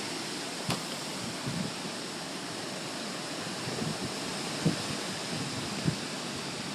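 Hurricane storm noise: a steady rushing hiss of wind and rain. There is a short sharp tick just under a second in and a few brief low bumps of wind on the microphone near the end.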